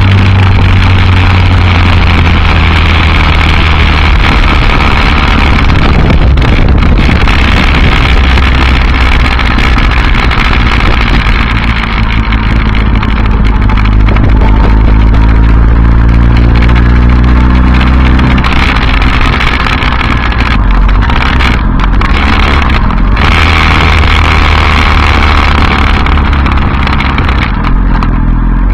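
Yamaha R1 RN19 inline-four engine, running through an Akrapovic silencer without a catalytic converter, heard from on the bike while it rides at low speed. The engine runs steadily at first. About halfway through the revs climb for several seconds, then drop sharply.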